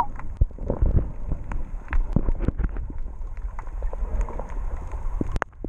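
Muffled underwater sound picked up through a submerged camera: water churning and bubbling, heaviest in the low end, with many irregular clicks and knocks.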